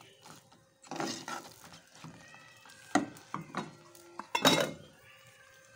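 Metal spoon scraping and clinking against a steel cooking pot while ladling out cooked saag. There are sharper knocks about one, three and four and a half seconds in.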